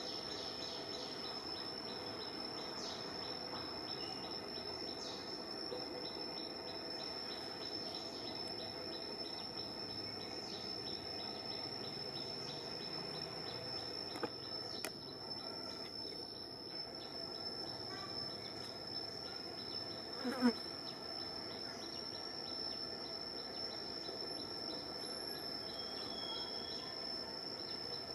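Forest insect drone: one steady, high-pitched note that runs without a break over faint ambient noise. About two-thirds of the way through there is one brief gliding animal call, and a few faint clicks come shortly before it.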